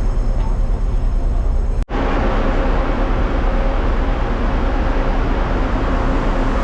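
Steady low rumble of a moving vehicle, with a brief cut in the sound about two seconds in.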